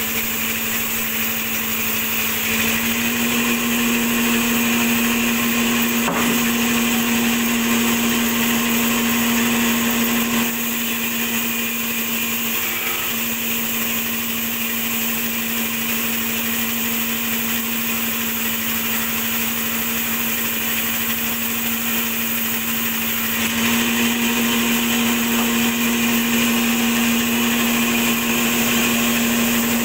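Large vertical log band saw running and sawing through a log: a steady machine hum with a hiss above it. The hum grows louder for two long stretches, a few seconds in and again near the end, with one sharp click about six seconds in.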